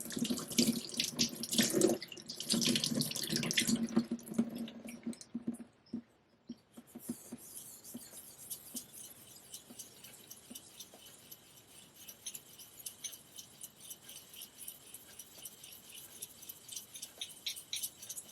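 Water running for the first six seconds or so. Then a straight razor is stroked back and forth on a Japanese natural finishing waterstone wet with slurry, in a long run of quick, even, faint scraping strokes.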